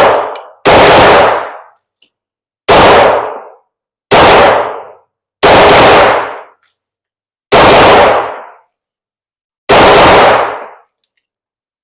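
Six pistol shots from a Glock 9mm handgun fired at a slow, uneven pace, one every one and a half to two seconds, each followed by about a second of echo.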